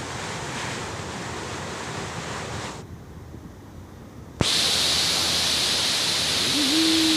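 Waterfall rushing: a steady, hiss-like wash of water noise that drops away and comes back abruptly, much louder and brighter from about four and a half seconds in. Near the end a single steady low tone is held for a couple of seconds.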